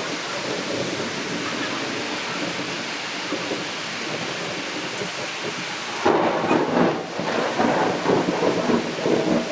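Rain falling steadily, with a louder, rougher surge starting about six seconds in.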